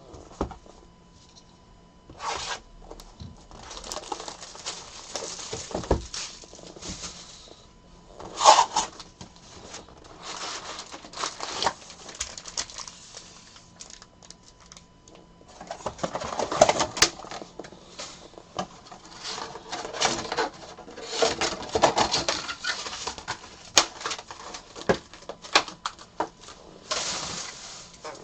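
Trading cards and their packaging being handled: rustling, tearing of pack wrappers and light taps and clicks of cards being sorted, in irregular bursts.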